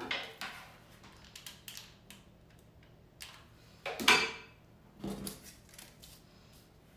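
Light clicks and rustles of hands working with tweezers and a paper cutout on a wooden table. There is a louder rustle about four seconds in and another about a second later.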